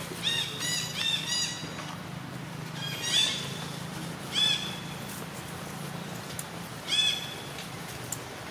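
Baby macaque giving short, high-pitched cries, each rising and then falling away, several in quick succession near the start and then single cries every second or two: the distress calls of an infant monkey.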